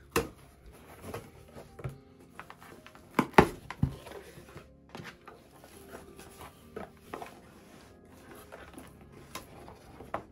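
A taped cardboard shipping box being pulled open and handled: the tape and flaps tearing back and cardboard rustling, with scattered sharp knocks, the loudest about three and a half seconds in.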